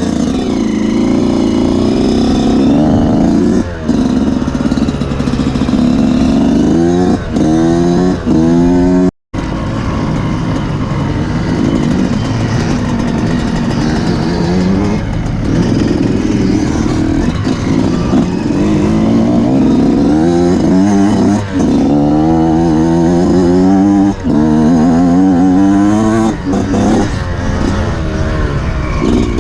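Off-road race motorcycle engine revving up and down as it is ridden hard, its pitch climbing and dropping again and again through throttle and gear changes. The sound cuts out for a split second about nine seconds in.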